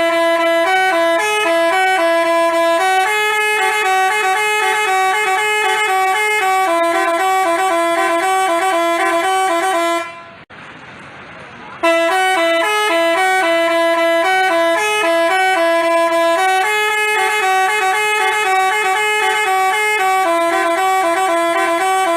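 Basuri 'telolet' multi-tone bus horn playing a tune of quick stepping notes. It stops for about a second and a half about ten seconds in, then starts the tune again.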